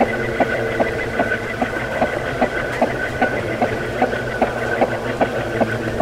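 Ceiling fan running: a steady electric motor hum with several fixed tones, and a regular light ticking about two and a half times a second.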